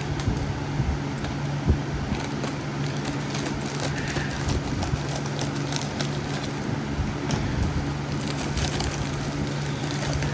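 Clicks and crackles of plastic packaging being handled and torn open as a parcel is unwrapped, over a steady low background hum.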